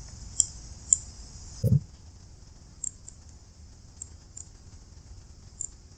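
Computer mouse clicking: about half a dozen short, sharp, scattered clicks while photos are dragged and a frame style is picked in an image editor. A short low sound comes just under two seconds in.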